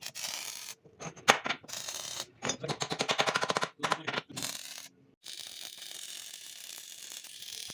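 Sharp mechanical clicks and knocks, then a rapid rattle of many quick strokes lasting about a second and a half, followed by a steady hiss.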